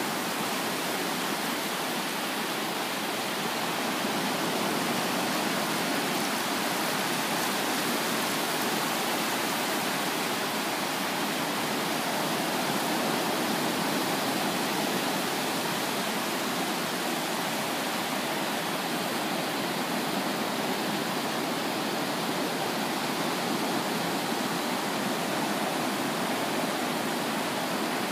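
Small ocean waves breaking and washing in over shallow surf: a steady, even hiss of surf with no single crash standing out.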